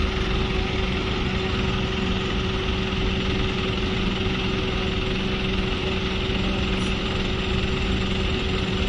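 A large engine idling steadily, with an even hum and no change in speed.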